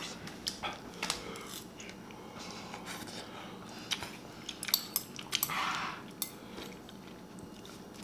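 Noodles being eaten with chopsticks from a ceramic bowl: scattered light clicks of the chopsticks against the bowl, with a short breathy sound about five and a half seconds in.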